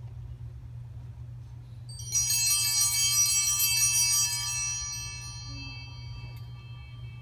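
Cluster of altar bells shaken about two seconds in, a bright shimmering ring lasting about two seconds, then dying away slowly.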